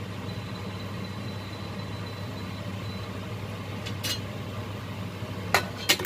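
A steady low hum, then a few sharp metallic clinks about four seconds in and again near the end as the pressure-cooker lid is set and fitted onto the stainless steel pot.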